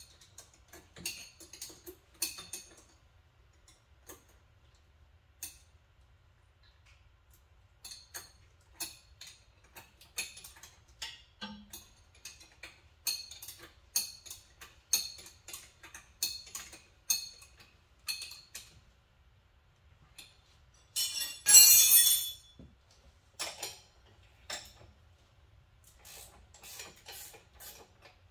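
Metal tools and hardware clinking and tapping at irregular intervals during sidecar fitting, with a louder noisy burst lasting about a second and a half about 21 s in.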